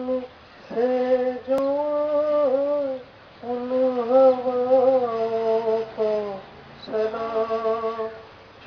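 A man singing a slow melody solo, in four long, held phrases with short pauses for breath between them.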